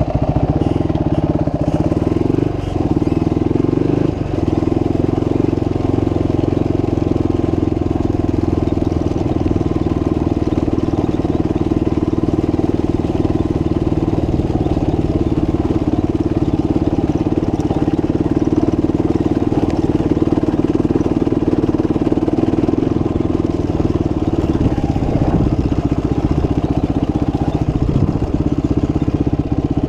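Motorcycle engine running steadily while riding, a constant drone that holds the same pitch throughout.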